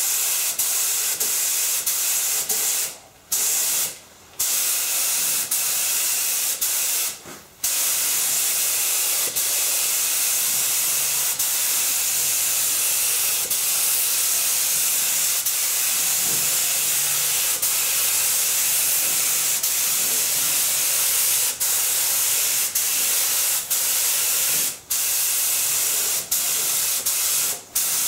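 Compressed-air gravity-feed spray gun spraying primer, a steady hiss of air and atomised paint. It breaks off briefly several times as the trigger is let go between passes.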